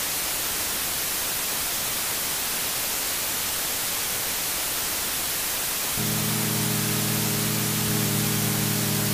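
Loud, steady static hiss, joined about six seconds in by a low, sustained droning chord.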